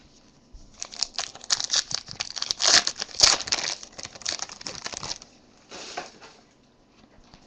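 A foil-wrapped Panini Select 2013 football card pack being torn open by hand: a dense crinkling and tearing of the wrapper that starts about half a second in, is loudest around three seconds and stops after about five. A shorter rustle follows near six seconds.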